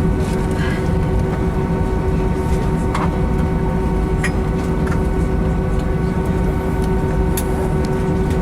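Airbus A319-131 cabin noise heard from a window seat: the IAE V2500 turbofans running at a steady level with a constant hum, along with a few faint clicks of cabin rattle.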